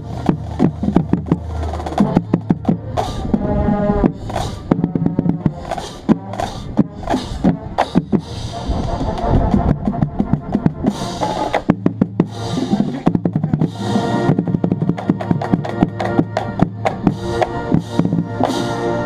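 Marching band playing: close-miked bass drum and snare/drumline strokes in quick rhythms with drum rolls, under sustained brass and wind chords.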